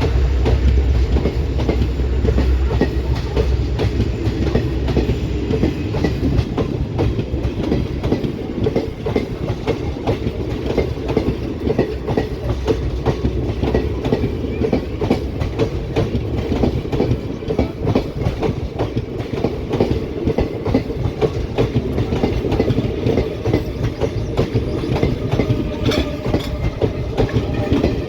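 A train rolling past, its wheels clattering rapidly and continuously over the rail joints above a steady rumble. The low rumble is heaviest in the first few seconds.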